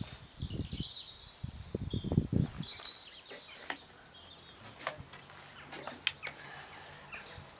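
Small birds chirping in short falling phrases, with low gusty rumbles on the microphone in the first couple of seconds and a few sharp clicks about five and six seconds in.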